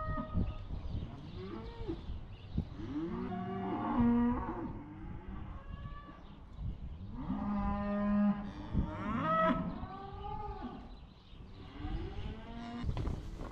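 Several cattle mooing and bawling, their calls overlapping, with long drawn-out calls about four and eight seconds in, as cows are sorted away from their calves at weaning.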